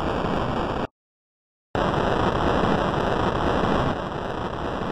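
Sampled spaceship-engine sound effect on a Commodore Amiga: a coarse, rushing noise that switches on and off abruptly. One burst cuts off about a second in, and after a short dead silence the noise starts again just as suddenly and runs on.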